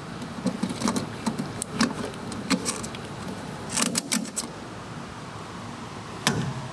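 Plastic fuel-filler gas cap being screwed back onto a Ford's filler neck: a string of irregular sharp clicks as it is turned and its ratchet tightens, with one louder click near the end.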